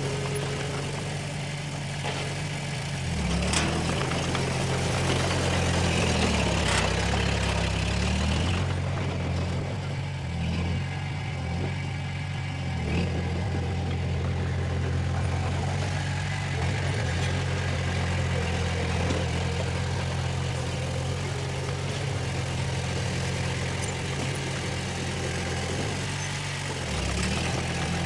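Diesel engine of heavy earthmoving equipment running steadily. Its pitch rises and falls for a few seconds near the start as it takes up load. Two sharp knocks come in the first several seconds.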